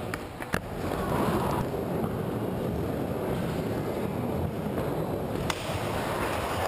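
Skateboard wheels rolling and carving on a wooden bowl, a steady rumble, with sharp clicks about half a second in and again near the end.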